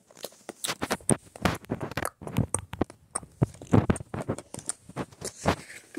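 A run of irregular crunching clicks and light knocks, uneven in spacing and loudness.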